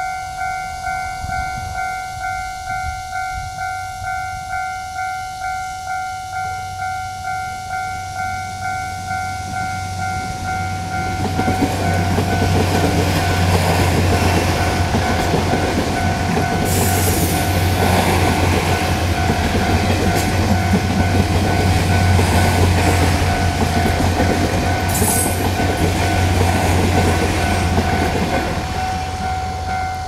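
Level-crossing warning bell dinging in a rapid, even pulse. About eleven seconds in, a Taiwan Railways DR3000 diesel multiple-unit express comes up and passes for nearly twenty seconds with a loud low engine drone and wheel noise. The train then fades and leaves the bell dinging alone.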